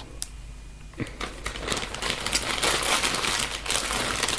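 Plastic packaging crinkling as it is handled, starting about a second in and growing louder.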